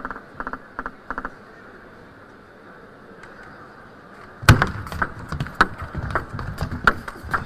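Table tennis ball clicking: a few light bounces on the table at the start, then after a quiet pause a rally of quick sharp hits off bats and table, with hall noise behind.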